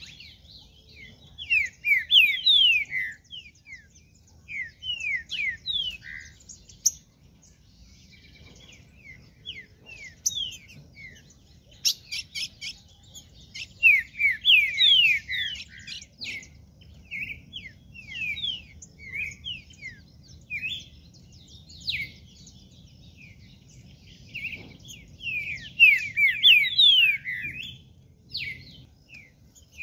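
Green-winged saltator (trinca-ferro) singing: phrases of quick, falling whistled notes, repeated several times with short pauses between.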